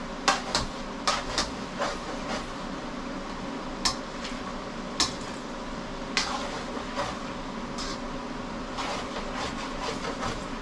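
Metal spoon clinking and scraping against a wok while stirring sautéing pork pieces: irregular sharp clinks roughly once a second over a steady background hiss.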